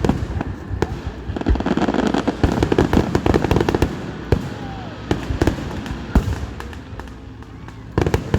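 Fireworks display going off: a rapid run of bangs and crackling in the first half, thinning out, then a fresh cluster of sharp bangs near the end.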